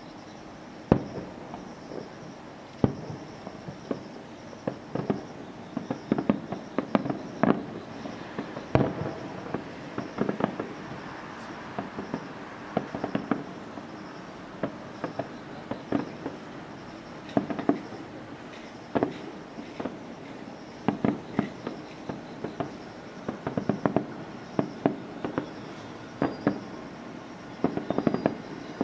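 Aerial fireworks bursting: single loud bangs, then dense irregular clusters of bangs and crackles.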